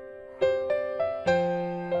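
Background piano music: single notes struck one after another and left to ring, with a fuller chord about a second in.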